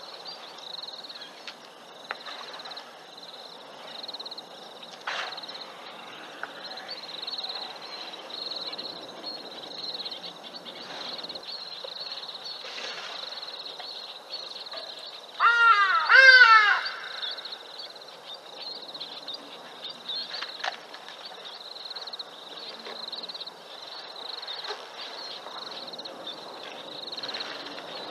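Outdoor bush ambience at dusk: a steady, pulsing, high-pitched chorus, with a loud burst of harsh, repeated animal calls about halfway through.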